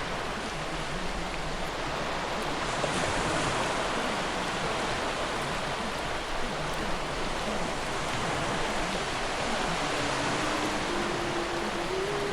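Steady wash of ocean surf. A faint held tone comes in near the end and steps up slightly in pitch.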